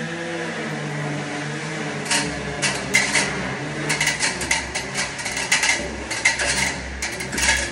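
Irregular metallic clinks and knocks, several a second from about two seconds in, as metal parts and tools are handled against an aluminium ladder, over a steady low hum.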